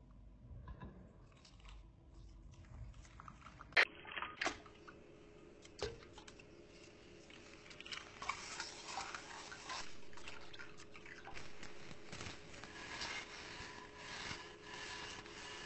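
Long acrylic fingernails rubbing and crinkling through a steel wool scouring pad: dense, crackly scratching that builds about halfway through, after a few sharp clicks.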